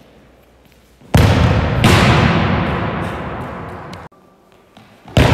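A faint click as the football is kicked, then two very loud booming hits less than a second apart, each fading slowly over a couple of seconds and cut off suddenly, with another boom near the end.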